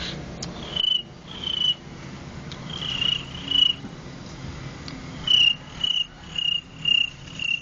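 Beatboxer's vocal imitation of a cricket chirping, made with an inward-breathed snore and an inward S through lips pushed down and forward. Nine short, high chirps at a steady pitch: two pairs, then a quick run of five.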